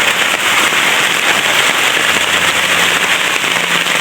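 Heavy rain pouring steadily, a dense, loud patter of drops hitting surfaces and water.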